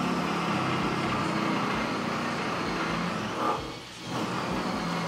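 Handheld electric drill running steadily while drilling, briefly stopping just under four seconds in and then starting again.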